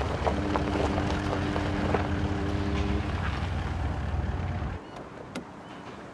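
A car engine running with a steady low hum, then switched off abruptly about five seconds in, followed by a single click.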